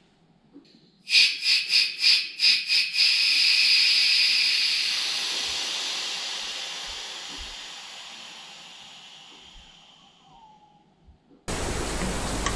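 Pressurised hand-held foam sprayer firing a few short spurts, then spraying in one continuous hiss that slowly fades as the tank's air pressure drops: much at the start, then little.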